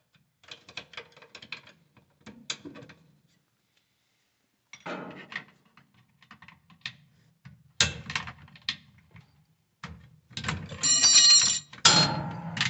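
Clicks and metallic clatter of a flathead screwdriver prying the spring-steel motor mounting clips off a top-load washer's motor, with a louder ringing metallic scrape near the end as a clip comes free.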